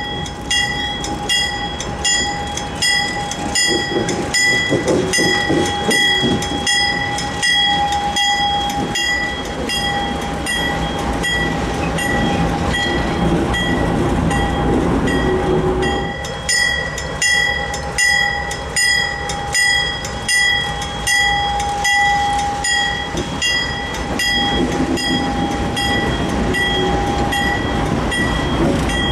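Railroad grade-crossing bell ringing about twice a second while a diesel-hauled freight train rolls past, its locomotive engines and wheels rumbling underneath.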